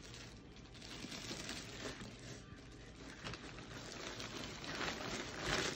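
Plastic mailer bag crinkling and rustling as it is pulled open by hand, louder near the end.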